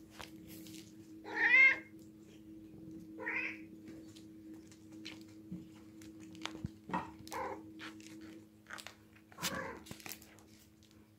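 A cat meowing about four times, the loudest call about one and a half seconds in, with faint clicks and scuffs from play on a tiled floor and a steady low hum underneath.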